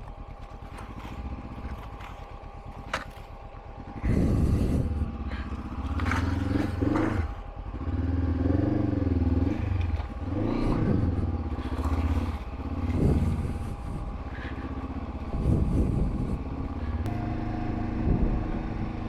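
Honda CB500X's parallel-twin engine running quietly at first, then pulling away about four seconds in, its revs rising and falling over and over as the throttle is worked.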